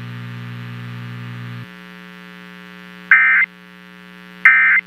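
Emergency Alert System end-of-message signal over a radio broadcast: two short, loud warbling digital data bursts about a second apart, marking the close of the severe thunderstorm warning. A steady electrical buzzing hum runs underneath and drops in level about one and a half seconds in.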